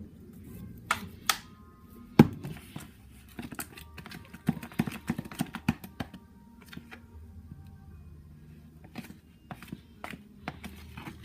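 A string of clicks and knocks from adding glue and stirring slime in a plastic container, the loudest about two seconds in and a quick run of them around the middle, over faint background music.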